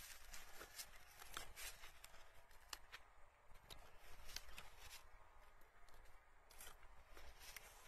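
Faint rustling and irregular crackling of young grape leaves and shoots handled by a gloved hand, as shoot tips are pinched off the vine.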